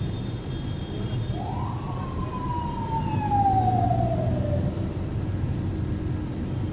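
Street traffic and engine rumble heard from inside a moving car. About a second and a half in, a single whistling tone rises briefly, then slides slowly down over about three seconds, like a siren winding down.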